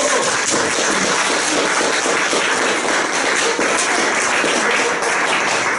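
Loud applause from a room full of people, many hands clapping at once.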